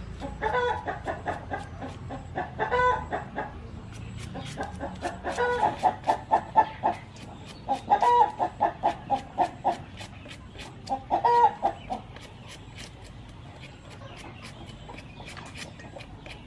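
A hen clucking in several bouts of rapid clucks, the last about twelve seconds in. Under them, light repeated scraping clicks of a hand peeler stripping the rind from a young watermelon.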